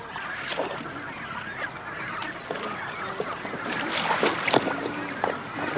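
Penguin colony calling: many short calls overlapping in a steady chorus.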